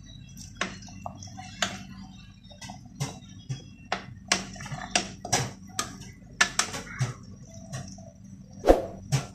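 A metal ladle clinks and knocks against the sides of an aluminium pressure cooker while stirring thick stew. The clinks are irregular, about two a second, with one louder knock near the end, over a steady low hum.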